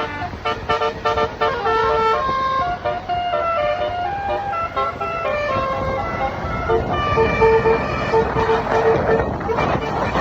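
Basuri horn, an Indonesian multi-note musical vehicle horn, playing a melody of short held notes that step up and down in pitch, over a low vehicle rumble. In the second half one note is sounded in quick repeated pulses.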